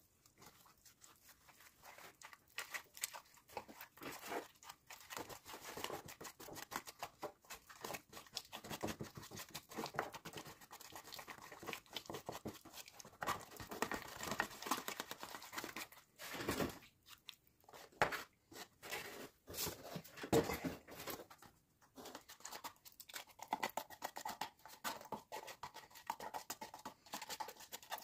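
Hand-work noises from model-scenery crafting: irregular scraping, crinkling and light tapping of small materials and tools, with no motor running.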